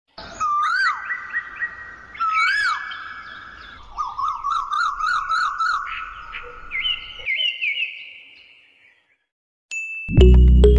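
Birds chirping and singing in repeated trills and whistled sweeps, fading out by about nine seconds. After a short pause, a thin high beep and then loud music start near the end.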